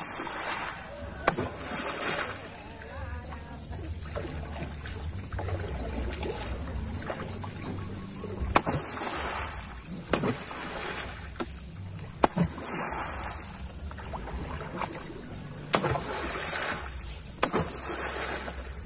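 A wooden paddle is slapped hard onto the river beside a small canoe, several times a few seconds apart. Each stroke is a sharp smack followed by a short splash, beating the water to drive fish into a gill net.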